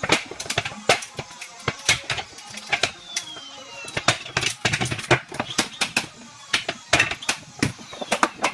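Rapid, irregular knocking and clicking, several sharp strikes a second, from hardwood floorboards being nailed down with a manual hand nailer.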